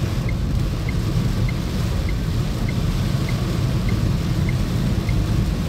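Heavy rain drumming on a car's roof and windscreen, heard from inside the cabin, with the tyres running through water on a flooded road and the wipers sweeping. A faint tick repeats evenly, a little under twice a second.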